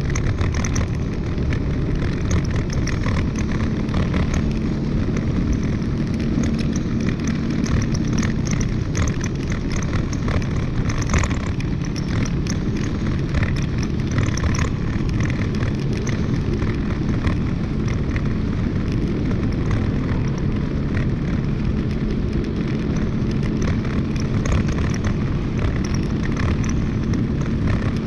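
Wind buffeting the microphone of a camera riding on an open two-wheeler in motion, a steady rumbling rush full of crackles, with the vehicle's engine humming steadily underneath.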